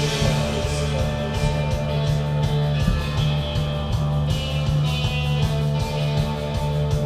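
Rock song with guitar and a steady beat of about two strokes a second.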